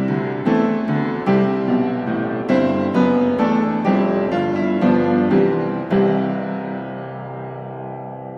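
Background piano music: single notes and chords struck at an unhurried pace, then a last chord left to ring and fade out from about six seconds in.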